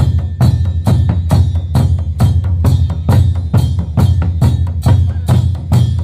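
Large double-headed wooden barrel drums with hide heads, beaten with sticks by several drummers in a steady rhythm of deep strokes, about two a second.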